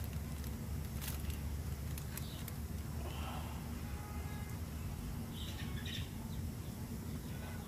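A steady low outdoor rumble, with a few light clicks and rustles as aluminium foil and a round wire grate over a wood fire are handled. Faint high chirps come twice, once a few seconds in and once near the end.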